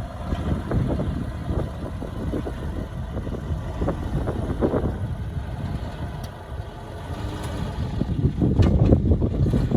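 Diesel engine of heavy earthmoving machinery running with a steady low rumble, growing louder near the end.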